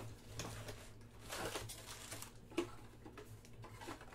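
Faint rustling and light clicks of packs being lifted out of a 2022 Panini Select baseball hobby box and handled on the table, with one sharper tap about two and a half seconds in. A low steady hum runs underneath.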